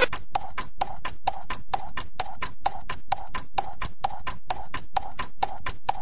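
Stripped-down electronic dance music: a bare, even pattern of short knocking percussion hits, about four a second, with no bass or melody under it.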